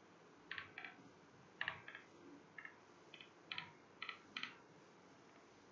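Chalk writing on a blackboard: about a dozen short, faint taps and scrapes in quick succession, several with a thin squeak.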